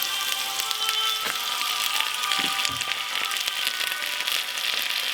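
Leftover roast chicken and roast vegetables sizzling as they fry in a pan: a steady, dense crackle.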